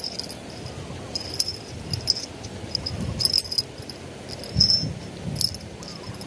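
Small fishing-rod bite bells (klinting) on the rod tip tinkling in short, high jingles several times as they are clipped on and handled.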